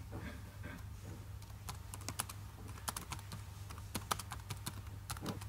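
Typing on a laptop keyboard: quick, irregular key clicks over a low steady hum.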